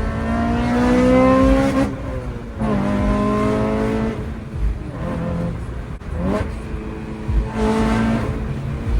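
Car engine accelerating hard, pitch climbing and dropping sharply about two seconds in as it shifts up, then climbing again, with brief rev rises and falls later on.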